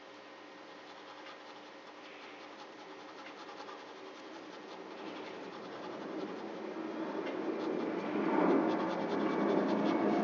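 Pen scratching across paper in quick hatching strokes as shading is drawn. Over the last few seconds a broad rushing noise swells up and becomes louder than the pen.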